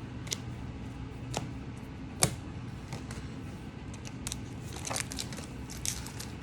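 Pokémon trading cards being handled and flipped through: scattered sharp clicks and light rustles, the loudest click about two seconds in, over a steady low hum.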